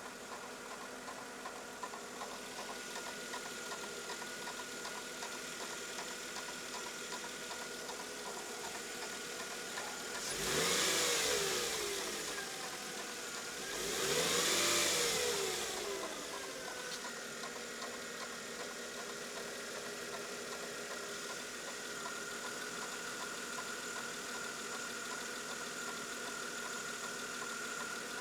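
Mercedes E320's 3.2-litre V6 idling with a freshly replaced accessory-belt idler pulley, blipped twice about ten and fourteen seconds in, each time rising in pitch and settling back to idle over about two seconds.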